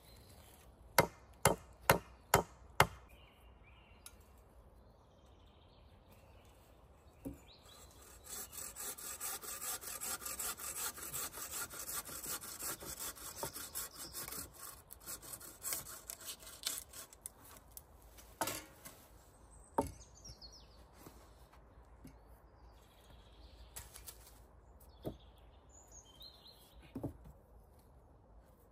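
About five sharp knocks on wood in quick succession, then about ten seconds of wood being sawn in quick, even strokes. A few scattered knocks follow.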